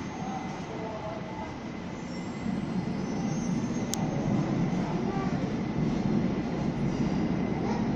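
Three-car Kaohsiung MRT orange-line metro train running into an underground station behind platform screen doors. Its running rumble grows louder about two and a half seconds in, with one short, sharp high-pitched sound about four seconds in.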